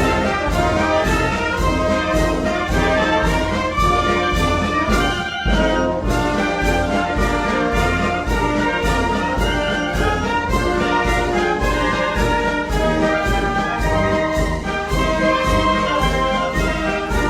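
Brass band music of the kind played at Moros y Cristianos festivals, with trumpets and trombones over a steady bass drum beat about twice a second. There is a momentary break about five seconds in.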